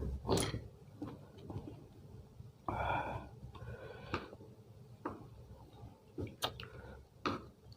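A person eating close to the microphone: chewing and breathing, with several sharp clicks of a utensil against a plate scattered throughout and a brief pitched sound about three seconds in.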